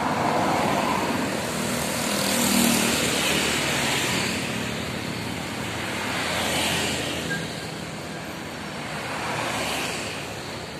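Road traffic passing close by: a car and motorcycles go past one after another, about four rises and falls of engine and tyre noise.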